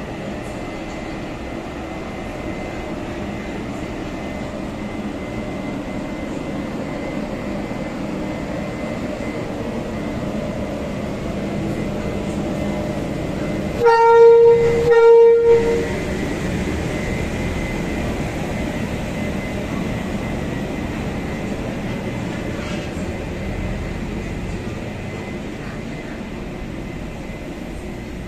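Electric locomotive E235 pulling a passenger train out of the station with a steady rumble, sounding its horn in two blasts about a second each, close together about halfway through: the departure horn.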